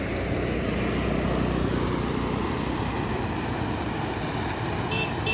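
Swollen river in flood, the water rushing with a steady roar. A couple of short high-pitched tones sound near the end.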